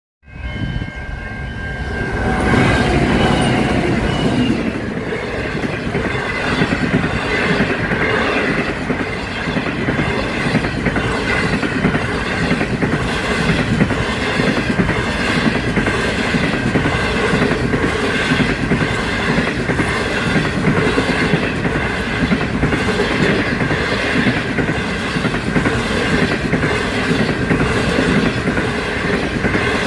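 The Ghan's stainless-steel passenger carriages rolling past close by, wheels clicking over the rail joints in a steady, regular clickety-clack. A steady high ringing tone runs through it. The sound swells about two seconds in.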